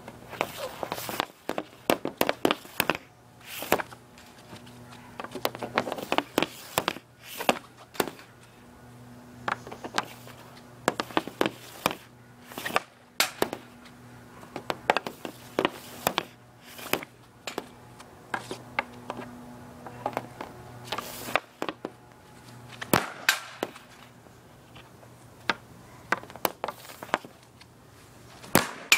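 An Easton EQ50 intermediate hockey stick slapping pucks off a plastic shooting pad, shot after shot, each shot a sharp crack, often in quick pairs or threes, every second or so.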